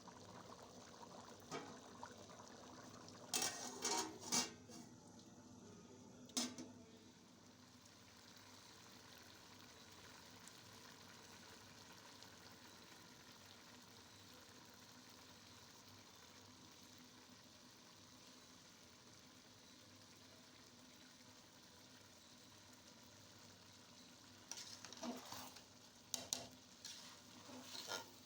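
Chicken biryani frying in a pot with a faint steady sizzle. A spoon stirs and scrapes against the pot in short bursts a few seconds in, and again several times near the end.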